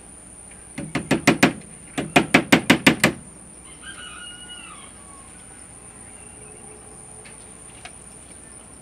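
Two quick runs of sharp hammer blows on a wooden door, about five strikes and then about seven, as a patch is nailed over a rat-gnawed hole. A short bird call, likely a chicken, follows about four seconds in.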